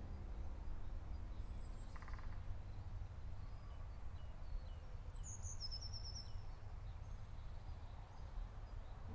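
Open-air wetland ambience under a steady low rumble. A small bird gives a quick run of high, falling chirps about five seconds in.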